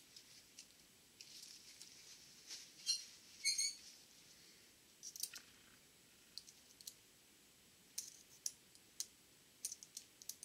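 Scattered light clicks and ticks of steel feeler-gauge blades and gears being handled on a Borg-Warner T-10 four-speed mainshaft while the gear clearance is checked. There is a soft rustle about a second in, followed by a couple of louder, briefly ringing clicks about three seconds in.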